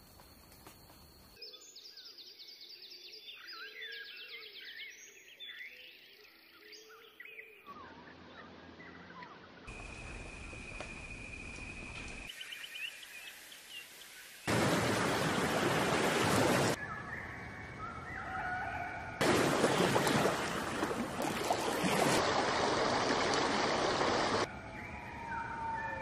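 Songbird chirps and whistles over outdoor ambience, made of separate nature recordings that cut abruptly every few seconds; two loud stretches of even hissing noise come in the second half.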